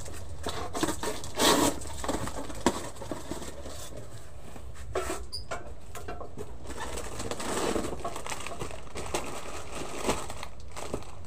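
Plastic food packets rustling and crinkling as they are handled and stacked into cardboard shelf boxes, with irregular knocks; the loudest is about one and a half seconds in. A bird, a dove or pigeon by its call, coos in the background.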